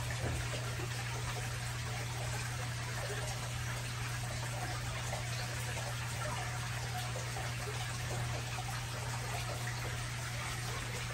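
Steady trickle of circulating aquarium water over a constant low hum.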